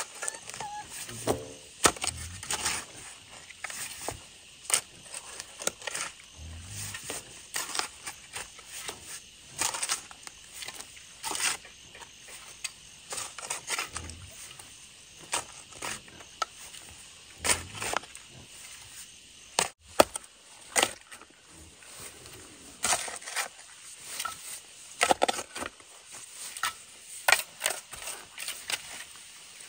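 Steel hoe chopping into and scraping dirt: irregular sharp strikes and scrapes, roughly one a second, some louder than others.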